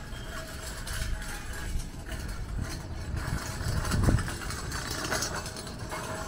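City street traffic on a wet road: vehicle engines running, with a brief low rumble swelling about four seconds in.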